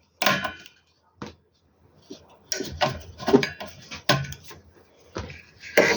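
A series of irregular metal clinks and knocks from battery leads being taken off a solar inverter's battery terminals and its parts handled on a workbench.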